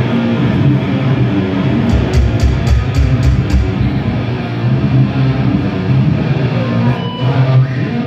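Death metal band playing live through a venue PA during a soundcheck: loud distorted electric guitars and bass over drums. About two seconds in comes a run of evenly spaced drum-and-cymbal hits, about four a second.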